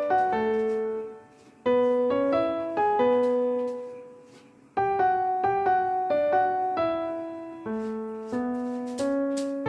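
Background piano music: a slow, gentle melody of single notes and chords, each note struck and left to fade, with two brief lulls where the sound dies away, about a second in and again around four seconds in.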